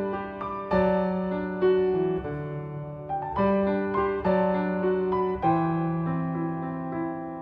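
Background music: a slow, gentle solo piano instrumental, with chords struck about once a second.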